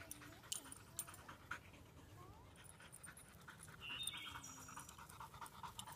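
A dog panting rapidly and steadily, with a brief high squeak about four seconds in.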